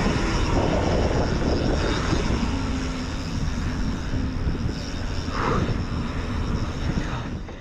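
Wind rushing over a helmet-mounted action camera's microphone, with tyre noise, as a mountain bike runs fast down a steep paved descent.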